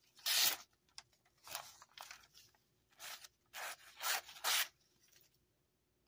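Small pen blade of a carbon-steel Case pocketknife slicing through a sheet of glossy catalog paper in about seven short rasping strokes over the first five seconds. This is a paper-cut test of the edge just after honing it on a 1000-grit ceramic stone.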